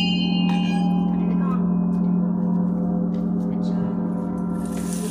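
Large hanging gong ringing on after being struck with a mallet: a deep, steady hum with many overtones that fades only slowly, with a light tap on it about half a second in.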